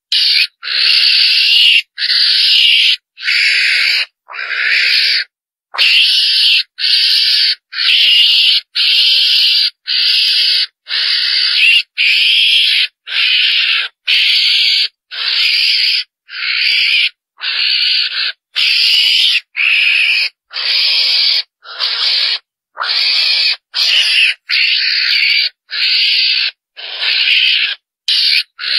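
Recorded hunting lure call of the chồn đèn, a small wild carnivore: a harsh, hissy call without clear pitch, repeated about once a second with short gaps between calls.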